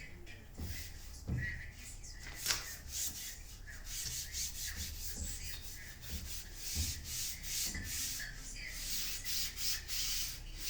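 Wire weeder scraping through dry soil in quick repeated strokes, a scratchy rasping sound, with a few dull knocks along the way.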